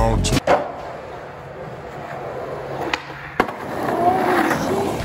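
Skateboard on pavement: a sharp board hit just after some music cuts off, then two quick clacks about three seconds in and urethane wheels rolling over concrete, growing louder toward the end.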